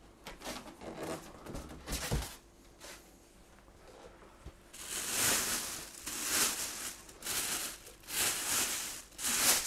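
Plastic wrapping around a new outboard motor being handled and pulled open. A few faint knocks and rustles come first, then from about halfway in a run of loud, separate bursts of crinkling.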